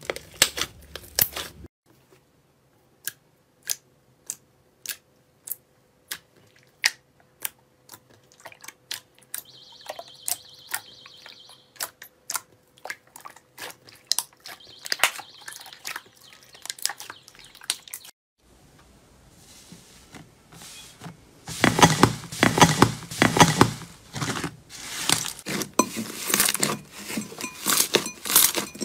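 Slime being pressed and kneaded by hand, giving off sharp separate clicks and pops at first, then a dense, louder run of crackling squelches from about two-thirds of the way in.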